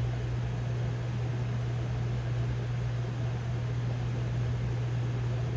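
Ninja Foodi multicooker running in its preheat with the lid closed: a steady low hum from its fan motor over an even airy whoosh, unchanging throughout.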